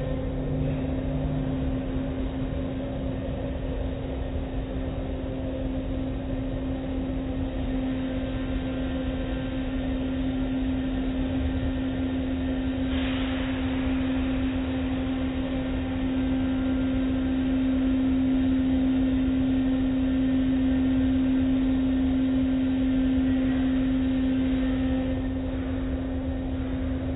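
Automatic car wash machinery running: a steady motor hum over a low rumble of spinning cloth brushes and water, with a brief hiss about 13 seconds in.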